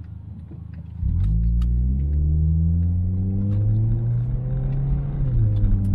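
Car engine and exhaust accelerating, heard from inside the cabin. After a second of low rumble the engine note gets suddenly louder and climbs steadily in pitch for about four seconds. Near the end the pitch drops back a little and then holds.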